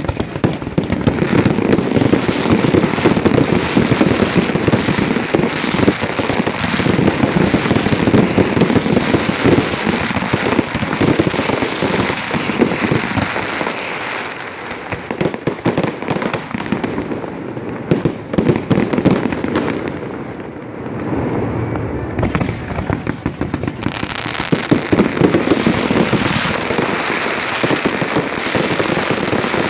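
Fireworks display: a dense, continuous barrage of bangs and crackling bursts, easing briefly about two-thirds of the way through before building again.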